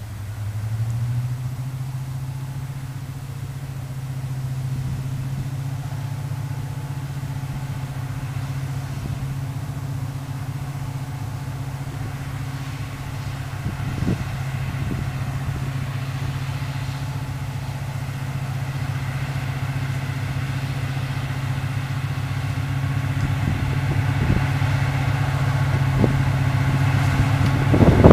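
Class 55 Deltic diesel locomotive's twin Napier Deltic two-stroke engines working hard as it pulls away with its train. The engine note steps up about a second in, then runs steady and grows louder as the locomotive draws near, with a few short knocks in the second half.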